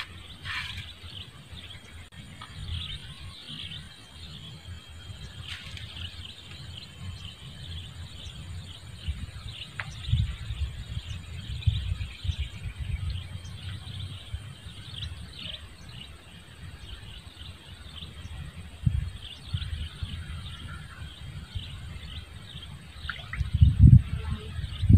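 Birds chirping intermittently around a reedy swamp, with low wind rumble on the microphone that swells a few times and is strongest near the end.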